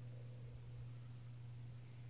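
Quiet room tone with a steady low hum and no distinct event.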